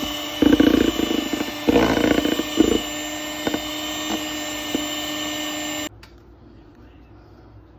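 Electric hand mixer running with its twin wire beaters whirring through thick cake batter in a plastic bowl, louder twice in the first three seconds. It cuts off abruptly about six seconds in, leaving quiet room sound.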